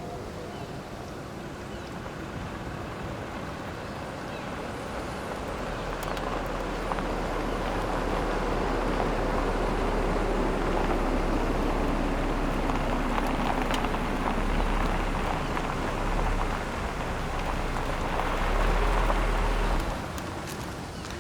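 A motor vehicle running, with a noisy hiss and a low rumble that comes in about five seconds in, grows louder and then drops away suddenly near the end.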